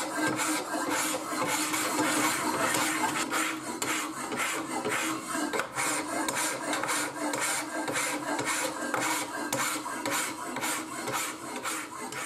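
Hand file, held at a fixed angle by a rod-and-clamp filing jig, rasping along the steel of a knife blade forged from an old file, in steady back-and-forth strokes. This is hand-filing of the cutting-edge bevel.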